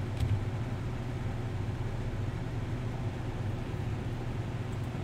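Steady low background hum of room noise, with no speech.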